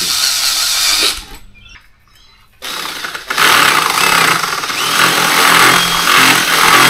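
Cordless drill running for about a second while boring a hole, then after a short pause a power tool starts up and runs steadily and loudly.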